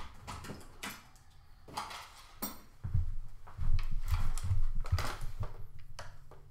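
Handling noise: scattered clicks and clinks of small hard tools and parts, with a run of dull thumps in the middle and plastic parts being set into the pack near the end.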